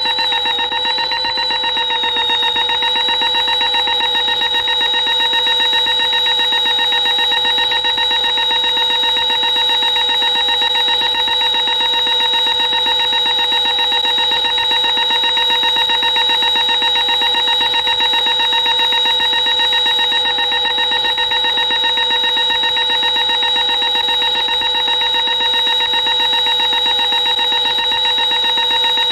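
Synthesized sci-fi alarm: a steady electronic tone with a rapid trill running through it, held without a break.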